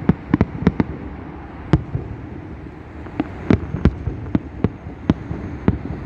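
Fireworks going off, a quick irregular string of sharp cracks and pops, two or three a second.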